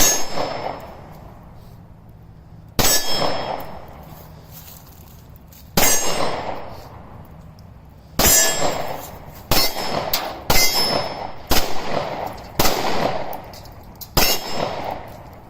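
About ten gunshots at steel targets, slow at first and then quicker from about eight seconds in. Each shot is followed by a ringing metallic clang from the plate.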